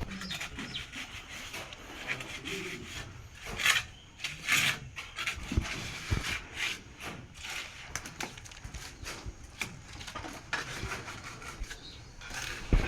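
Irregular scraping and rubbing strokes of hand tools, with a few sharp knocks in between.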